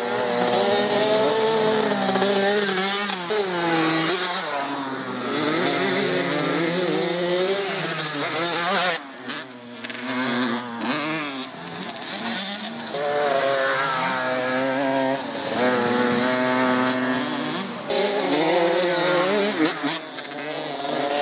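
Several small motocross bikes ridden on a dirt track, their engines revving up and down as they pass, with more than one engine note overlapping at once.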